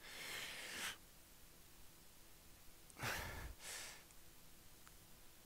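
A man breathing audibly with effort while balancing on one leg: a long breath in the first second, then a stronger exhale about three seconds in and a short breath right after it.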